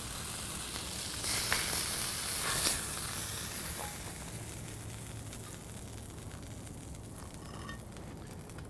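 Beef patties sizzling on a Blackstone flat-top griddle, with a couple of spatula scrapes under them about a second and a half in. The sizzle fades after about four seconds as the patties come off the heat.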